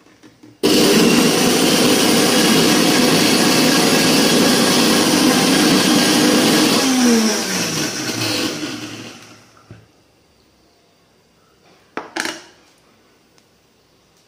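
Electric mixer grinder switched on and running at full speed, blending eggs and sunflower oil into mayonnaise. After about six seconds it is switched off and spins down with a falling whine. A short clatter comes near the end.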